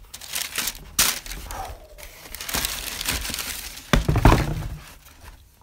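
Sneaker box and paper packaging being handled and opened: irregular crinkling and rustling, a sharp click about a second in and a heavier thump about four seconds in.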